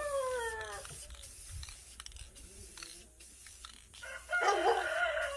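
A rooster crowing: one long call falls in pitch and ends about a second in, and another crow starts near the end. In between, faint hissing from a Rust-Oleum 2X aerosol spray-paint can in short, quick bursts.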